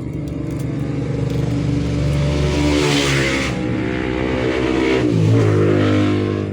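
A motor vehicle engine revving up and passing, its pitch rising and then falling, loudest in the middle.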